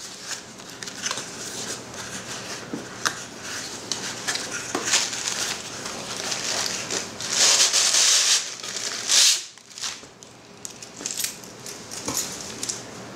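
A cardboard shipping box being torn open by hand, and honeycomb kraft-paper packing pulled out and crinkled: irregular rustles, crackles and small knocks. The loudest rasping rustles come a little after seven seconds and again at about nine seconds in.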